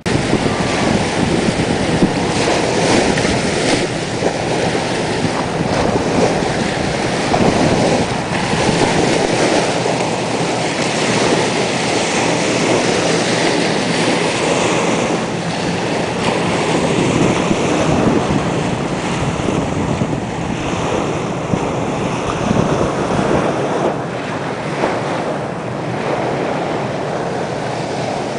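Small waves breaking and washing up on a sandy shore, with wind blowing steadily on the microphone.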